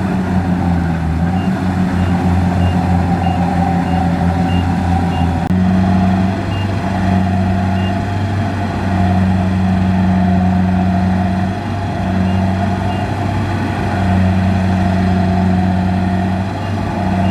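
Kubota DC-70 combine harvester's diesel engine and threshing machinery running steadily under load, with a deep hum that swells and eases every second or two. A faint, rapid high beeping sounds over it during the first few seconds.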